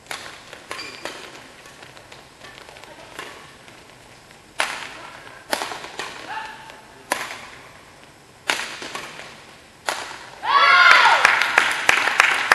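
Badminton racket strikes on a shuttlecock during a rally: sharp, echoing cracks about every second to second and a half. Near the end a loud cry is followed by clapping as the rally is won.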